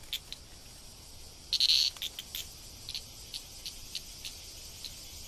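Insects chirping in short, high chirps, with a louder, longer burst about one and a half seconds in, then fainter chirps spaced out.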